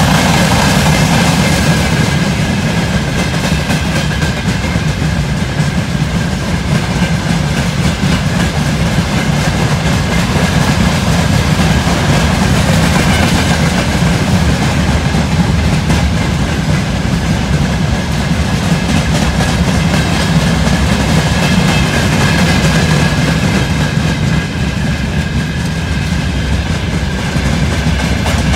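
Freight train wagons, covered hopper cars and open gondolas, rolling past on steel rails: a steady rumble with the clickety-clack of wheelsets over rail joints and a constant high ring.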